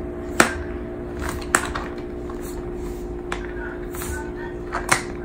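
A handful of short, sharp clicks and scuffs from a Bengal cat's claws and a rubber-soled running shoe knocking on a hard floor as the cat wrestles the shoe, over a steady low hum.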